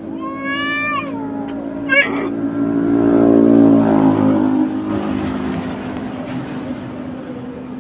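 Domestic cat yowling at a dog: a long, falling cry in the first second and a short cry about two seconds in. A steady low hum and a swell of noise follow and peak about four seconds in.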